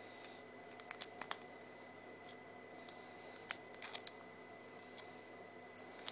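Foil wrapper of a Pokémon TCG booster pack being picked and pulled at while it resists tearing open: scattered small clicks and crinkles, a handful of them, the sharpest about three and a half seconds in.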